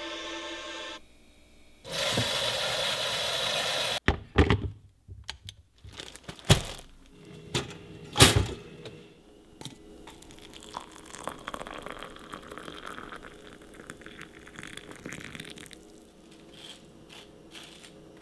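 A phone alarm tone that stops about a second in when it is tapped off. Then a few seconds of loud rushing noise, a string of sharp kitchen knocks and clatters, hot water poured from an electric kettle into a ceramic mug, and a table knife scraping jam across toast on a plate.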